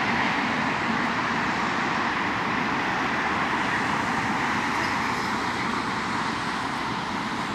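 Steady jet roar from a Boeing 787-9 fading slowly as it moves away onto the runway to land, mixed with road traffic from cars passing close by.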